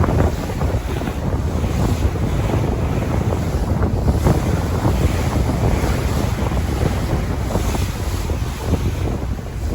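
Ocean waves breaking and washing in a steady roar of surf, with a low rumble and wind noise on the microphone.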